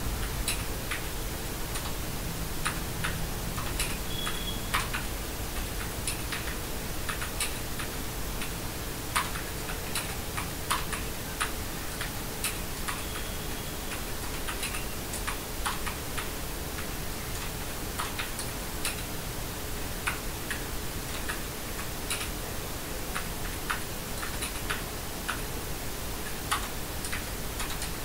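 Mechanical keyboard with hot-swappable switches being typed on: irregular, unhurried key clicks, one to three a second, over a steady background hiss.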